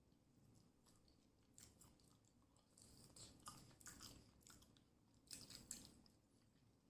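A person chewing a mouthful of food, faint, with short mouth clicks coming in bunches, loudest a little past the middle.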